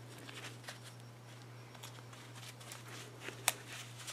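Faint metal clicks and handling noise from a Leatherman Juice CS4 stainless-steel multi-tool being worked in the hands, with one sharper click about three and a half seconds in. A steady low hum runs underneath.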